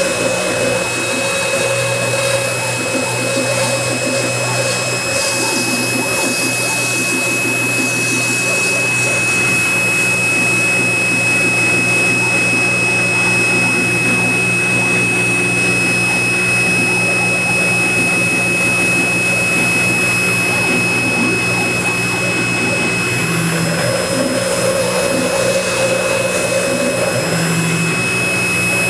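Small CNC mill running a milling pass: the spindle motor gives a steady high whine while the axis stepper motors hum underneath, their pitch stepping now and then as the head changes speed and direction. The bit is set too high to cut into the cardboard properly.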